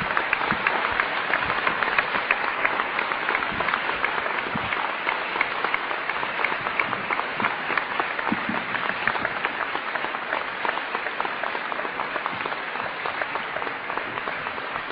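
Audience applauding: a dense, steady patter of many hands clapping that slowly eases off toward the end.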